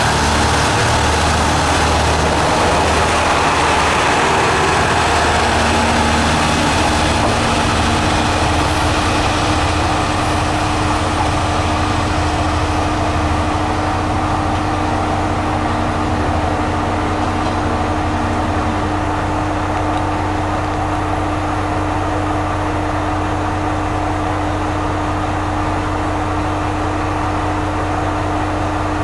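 Diesel railcar of the Kanto Railway Jōsō Line pulling out and running away along the track, its engine and running noise slowly thinning out. From about a third of the way in, a steady engine hum with one level tone carries on underneath.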